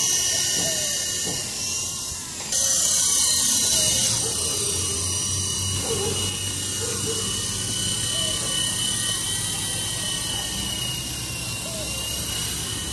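Toy remote-control helicopter's small electric motor and rotor whirring steadily, with a thin high whine. The sound breaks off abruptly about two and a half seconds in and picks up again.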